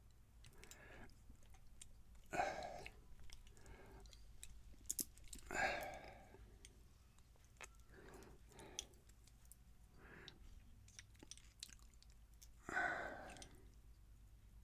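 Small metal clicks and scrapes of a tool working at a lock cylinder being taken apart, with three louder brief scraping rasps.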